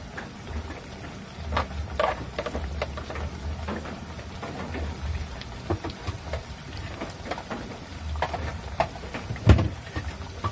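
Banana slices deep-frying in hot oil in a wok, sizzling with scattered pops and crackles. One sharper, louder click near the end.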